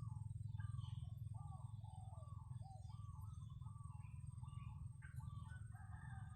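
Garden birds calling in a quick run of short, repeated notes, several overlapping near the end, over a steady low rumble.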